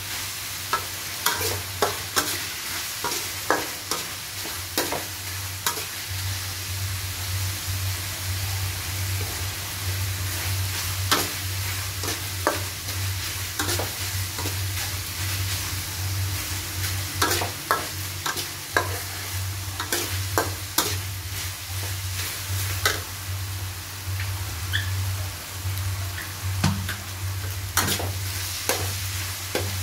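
Metal spatula scraping and knocking against a steel wok, in irregular clicks, as small pieces of food are stir-fried sizzling in oil. A steady low hum runs underneath from about six seconds in.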